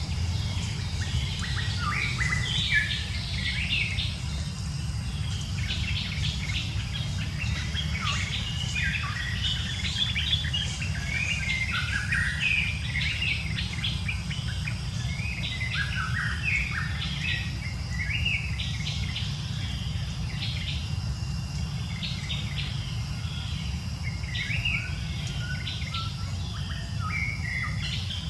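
Many birds chirping and calling at once, a dense run of short chirps and quick whistled glides, over a steady low rumble.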